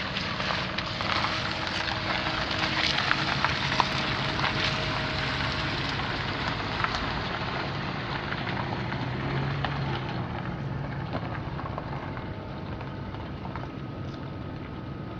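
A Ford F150's 4.6-litre V8 running at a steady idle, with a loud crackling hiss over it.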